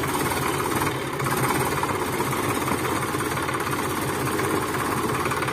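Sonalika DI 740 III tractor's diesel engine running steadily with a rapid, even knocking beat.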